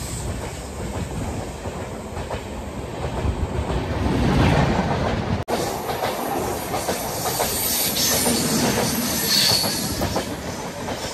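A passenger train running past on the adjacent track, close to an open coach doorway of a moving train: a steady loud rush of wheels and coaches with irregular rattling. The sound cuts out for an instant about halfway through.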